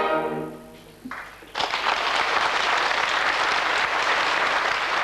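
An operetta orchestra's final chord dies away, then audience applause breaks out about a second and a half in and carries on steadily.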